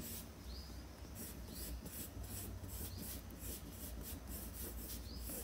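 Colored pencil scratching on sketchbook paper in short, quick, irregular strokes, over a low steady hum.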